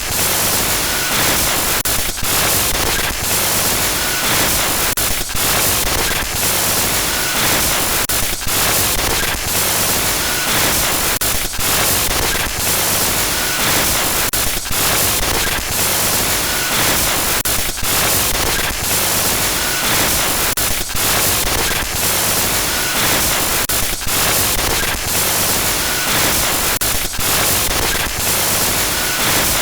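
Synthetic glitch-noise sound effect: loud, continuous harsh static hiss that stutters with frequent brief dropouts, with a faint short high beep recurring about every two seconds.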